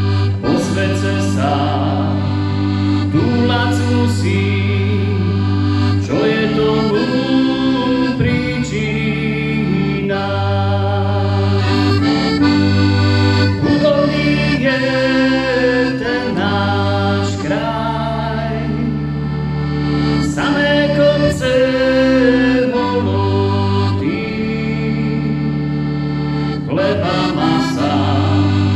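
Piano accordion playing a folk tune, with held bass notes changing every couple of seconds under the melody.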